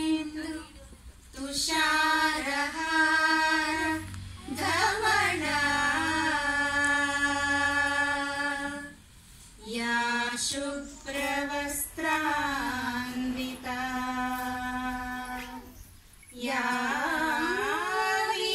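Women's voices singing an unaccompanied song in long held notes, phrase after phrase, with short breaks between the phrases.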